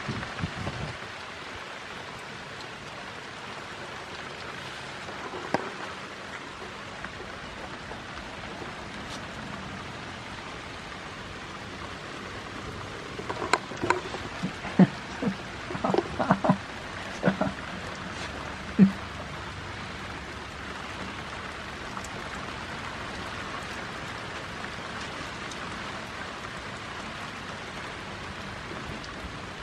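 Steady rain falling. Partway through, a burst of sharp knocks and rubbing as a goat's body brushes and bumps against the camera.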